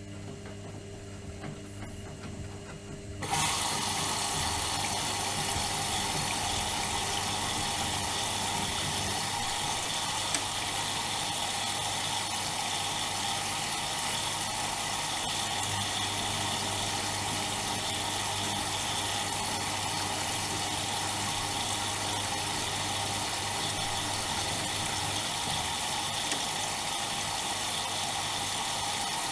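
Bauknecht WAK 5750 G front-loading washing machine taking in water: after a low steady hum, the inlet valve opens suddenly about three seconds in and water rushes steadily into the machine.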